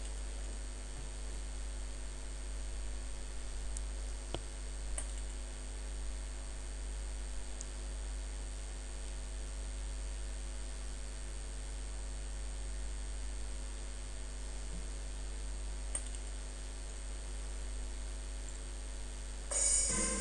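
Steady electrical mains hum, with a few faint clicks. Music starts just before the end.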